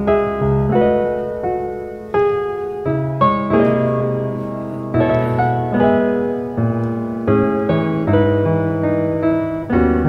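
Solo piano playing slow chords, each struck and left to ring and fade before the next.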